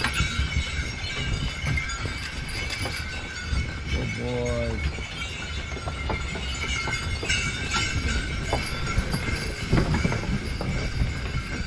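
Harness jingle bells ringing steadily as a horse-drawn sleigh moves, over a constant low rumble from the sleigh running through snow. A brief voice sounds about four seconds in.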